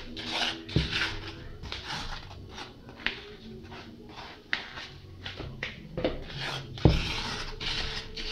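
Metal spoon scraping a chilled, scrapeable ice-cream base out of a plastic container in repeated short scrapes. Two knocks land among the scrapes, the louder one near the end.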